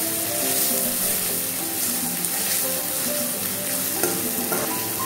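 Chopped onions sizzling in hot mustard oil in a metal kadai, stirred and scraped around with a spatula: a steady frying hiss with occasional scrapes of the spatula on the pan. The onions are at an early stage of frying and are still pale.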